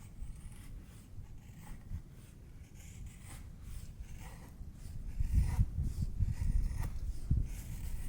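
Low rumbling with scattered light scraping and rustling, louder in the second half.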